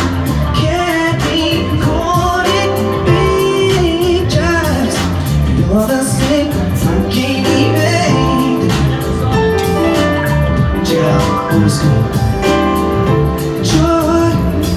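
A man singing a soul/R&B song live into a microphone over digital piano and backing music with a steady beat.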